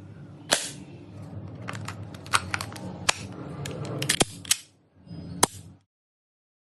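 VFC Avalon Calibur 2 PDW airsoft electric gun making a series of sharp snaps, some single and some in quick runs, over a steady low hum. The sound cuts off suddenly near the end.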